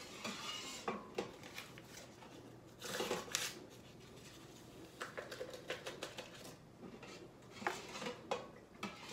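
A utensil stirring in a cooking pot, clinking and scraping against its sides in short irregular knocks, with a longer scrape about three seconds in: powdered pectin being stirred into warm juice.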